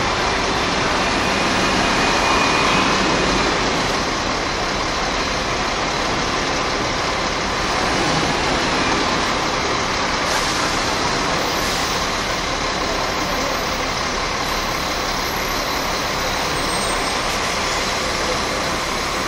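Diesel buses running through a bus terminus: a three-axle double-decker passes close, loudest about two to three seconds in, and other buses run steadily in the background, with a single-decker passing close near the end.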